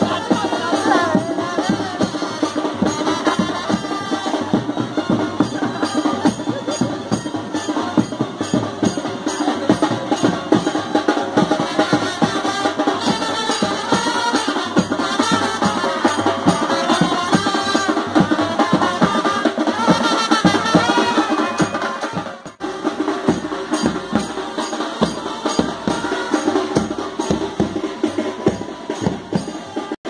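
A street brass band playing a lively tune, saxophones and trumpets carrying the melody over fast, dense drumming.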